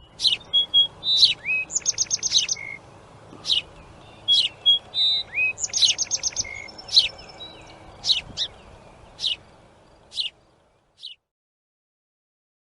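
Small birds chirping: many short, sharp high chirps with a couple of quick rapid trills, the same run of calls coming round a second time, over a faint background hiss. The chirping stops about eleven seconds in.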